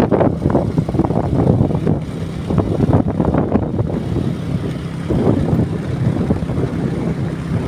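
Motor vehicle engine running while travelling, with wind buffeting the microphone in a steady, choppy rumble.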